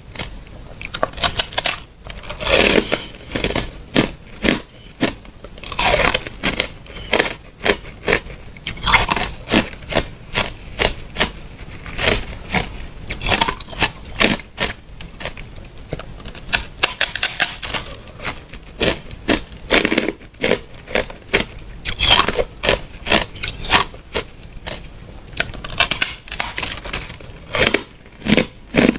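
Hard ice being bitten and chewed close to the microphone: dense, irregular crunching and cracking, many sharp cracks a second.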